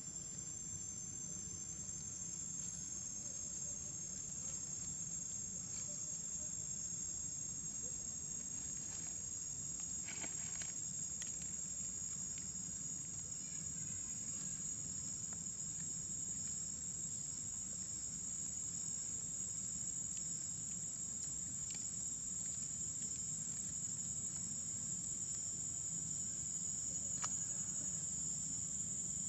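Steady, high-pitched insect chorus, one unbroken shrill tone, with a few faint crackles around the middle.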